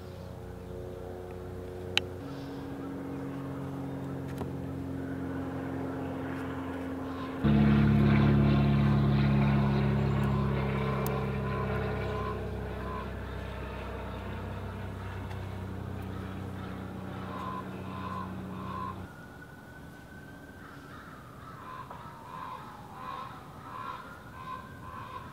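Motor vehicle engines running steadily, suddenly louder about seven seconds in and then fading. In the last few seconds a siren sounds, with a falling wail and short repeated tones.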